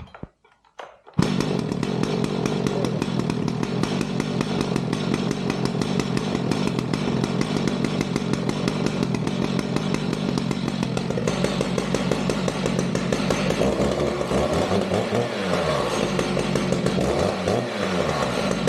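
Stihl MS 881 two-stroke chainsaw catching about a second in, after its first burp on choke, then running steadily. Its pitch rises and falls a few times in the second half.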